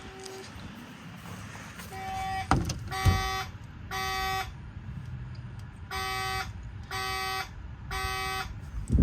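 Simplex fire alarm horns sounding in the temporal-3 evacuation pattern: three buzzy half-second blasts, a pause, then three more, heard from outside through the basement wall. A few low thumps come through as well, the loudest about two and a half and three seconds in, and another near the end.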